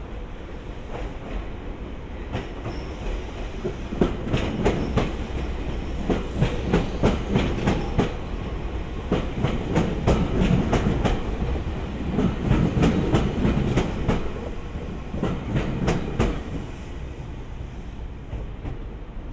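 JR East 205 series electric train passing close by, with a low rumble. From about four seconds in, its wheels clack over rail joints in quick groups, and both the clacking and the rumble fade after about sixteen seconds.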